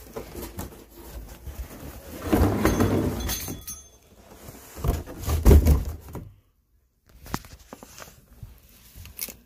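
Handling noise: rustling, rubbing and dull thumps as someone moves about right by a phone's microphone, louder twice, about two and a half and five and a half seconds in. The sound cuts out completely for under a second soon after the second loud spell.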